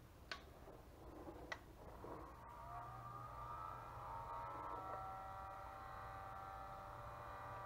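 A few handling clicks, then an electric heat gun switched on about two seconds in: its fan motor whines up to speed and runs steadily with a low hum, blowing hot air to soften masking tape on a boat hull.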